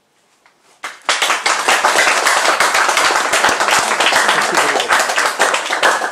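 Audience applause: a few first claps, then dense, steady clapping from about a second in.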